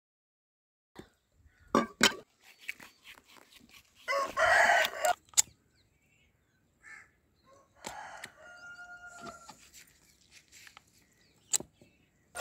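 Two sharp knocks of a hammer driving a cleaver into a goat's skull on a wooden chopping block. About four seconds in a rooster crows, with a second, fainter fowl call around eight seconds and one more knock near the end.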